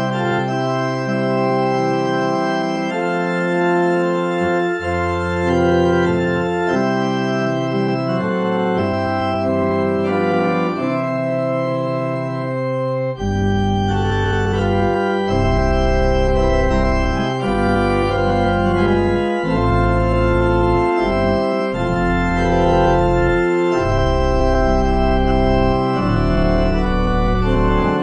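Organ playing a hymn tune in slow, held chords. Deep bass notes join about halfway through as the tune moves into the refrain.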